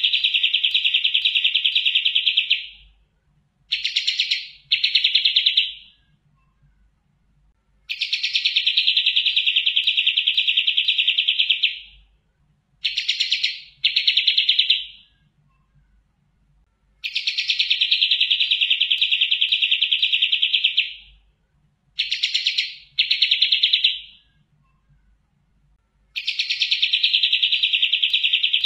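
Kapas tembak songbird singing its rapid buzzy trill. The pattern repeats about every nine seconds: a long trill of about four seconds, then two short trills close together.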